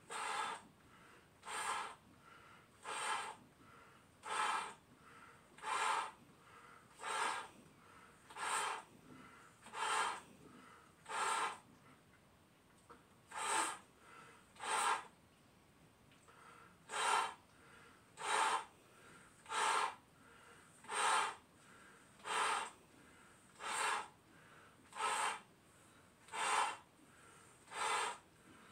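A person blowing up clear balloons by mouth: loud, regular breaths, about one every second and a half, with one short pause about twelve seconds in.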